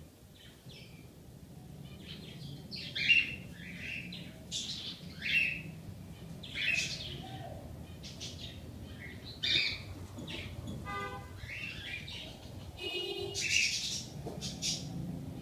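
Small birds chirping: short, sharp calls every second or so, a few of them loud. Twice, late on, a buzzy rattling call. A faint low hum runs underneath.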